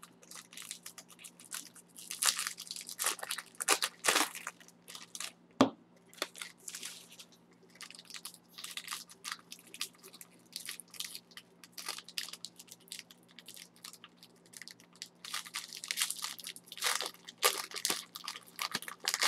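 Foil trading-card pack wrappers crinkling and crackling as they are torn open and handled, in irregular bursts, with one sharp snap about six seconds in.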